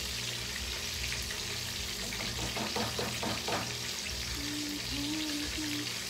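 Tilapia frying in hot oil in a skillet, a steady sizzle, with a run of clicks from metal tongs about two and a half to three and a half seconds in as the fish is turned.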